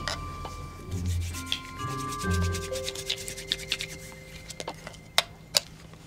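Hands fiddling with a small black handheld device: rubbing and quick small clicks, thickest in the middle, with a few sharper clicks near the end. Soft music with held notes plays under the first half.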